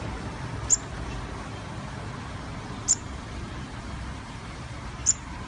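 Sunbird giving three short, high chirps about two seconds apart, over a steady low background hum.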